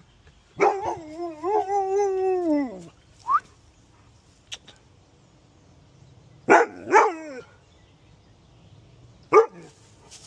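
A dog gives one long wavering howl lasting about two seconds that drops in pitch at the end, then a short yelp, then barks twice in quick succession about halfway through and once more near the end.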